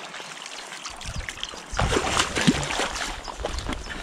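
Water splashing around a landing net as a hooked trout is scooped from the shallows, over the river's steady trickle. The splashing is loudest around the middle.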